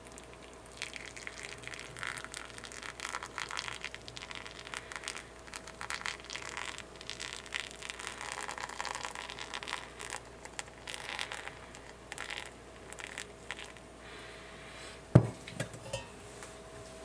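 Hot water poured in a thin stream from a kettle onto coffee grounds in a flannel drip filter, trickling and spattering unevenly for about thirteen seconds as the grounds bloom and foam. Near the end a sharp knock and two lighter ones follow, as the kettle is set down.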